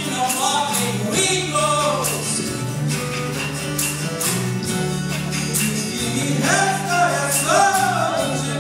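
Live rock-pop song: a singer's voice into a microphone over a band of electric and acoustic guitars, steady bass notes and percussion.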